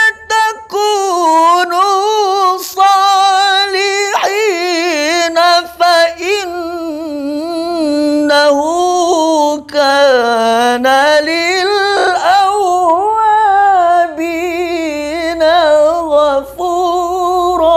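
A young man's voice reciting the Qur'an in melodic tilawah style. It is high-pitched and drawn out in long, melismatic phrases with wavering ornaments, broken by a few short breaths.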